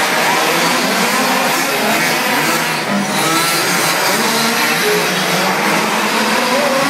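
Several radio-controlled 4x4 off-road racing cars driving on a dirt track: a dense, steady din of motors revving up and down in short whines.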